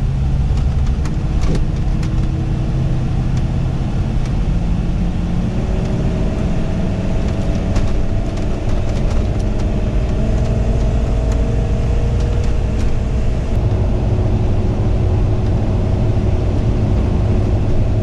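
Motorhome engine and road rumble while driving on the highway, its engine note climbing slowly and dropping back twice, around the middle and a little after.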